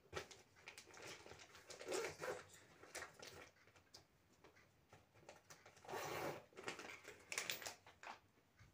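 A bare hand squeezing and kneading thick semolina-and-flour batter with grated coconut in a steel bowl: irregular wet squelches, the loudest about two seconds in and again about six seconds in.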